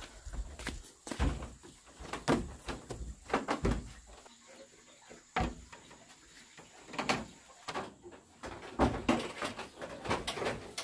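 Bare footsteps climbing wooden stair treads and crossing a plank floor: a run of irregular knocks on the boards.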